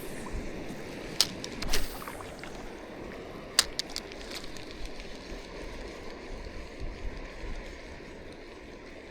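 Shallow seawater lapping and trickling over a reef flat, with a few sharp clicks and a short swish in the first four seconds.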